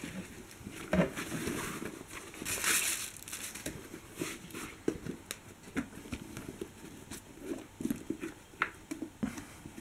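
Black leather boots being handled in and out of a cardboard box: the box and packing paper rustling and crinkling, with scattered light knocks and taps of the boot against the cardboard. The rustling is loudest around two to three seconds in.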